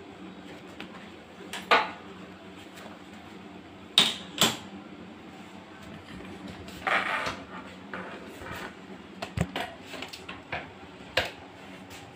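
Scattered short knocks and clicks of things being handled in a kitchen, with a sharp pair about four seconds in, a brief clattering scrape about seven seconds in and a run of small clicks near the end, over a steady low hum.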